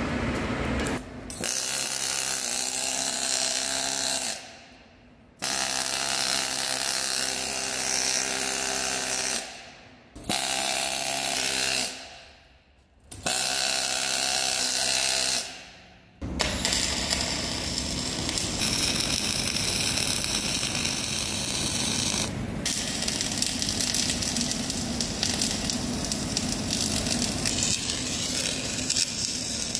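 MIG welding arc buzzing and crackling. It comes in four short runs of a few seconds each, broken by brief gaps, and about halfway in settles into one continuous run.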